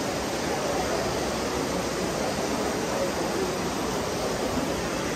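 Heavy rain falling on a roof: a steady, even hiss.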